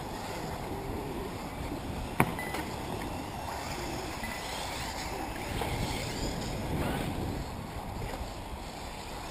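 Wind rumbling on the microphone, with the faint whine of electric 1/8-scale RC buggies rising and falling as they race. There is one sharp click about two seconds in.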